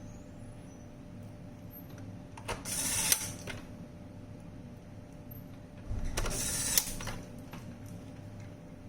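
Handling noise from working on a robot vacuum cleaner: two scraping, rustling bursts of about a second each, with a few light clicks, over a low steady hum.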